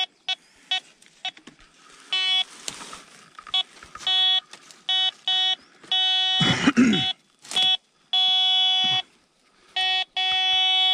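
Treasure-hunting metal detector beeping at one fixed pitch as it signals a buried target: short pips at first, then longer held tones from about six seconds in. A short rustling burst about six and a half seconds in.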